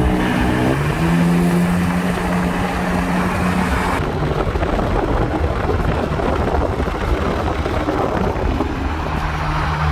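Car driving at speed, heard from a moving car: steady rumbling road and wind noise with an engine drone. The character of the sound changes abruptly about four seconds in, and a steady low engine tone comes back near the end.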